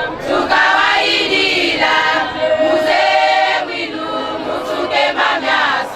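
A choir singing unaccompanied, several voices together in a sustained melody.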